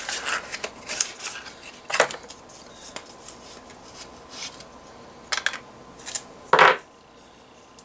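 Packaging being handled and pulled open by hand: scattered clicks and rustles, with a sharper knock about six and a half seconds in.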